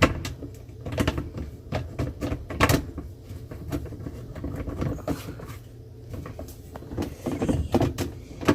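Dishwasher parts knocking and clicking as a piece is turned and worked into its slots, dropping into place with irregular clunks.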